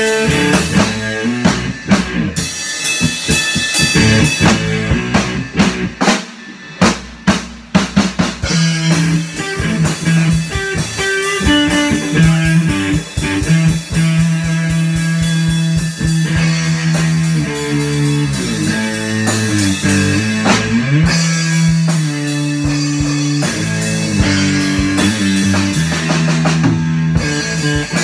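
Live two-piece rock band: a drum kit and an electric guitar. For the first several seconds the drums carry it, thinning to a few separate hits. Then the guitar comes in with long held notes and sliding pitch bends over the drumming.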